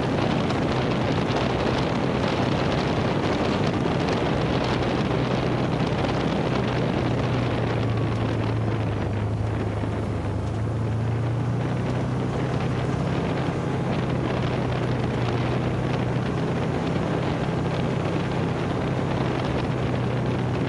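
UTV engine running at a steady cruise, its hum holding one pitch apart from a small dip and recovery around the middle. Tyre noise on the dirt trail and wind buffeting the microphone run underneath.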